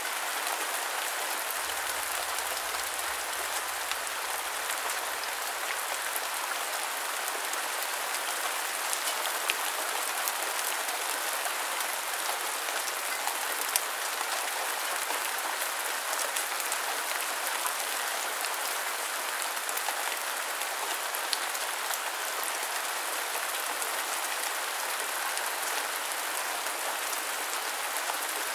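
Steady rain falling: a dense, even hiss with scattered sharp drop clicks through it.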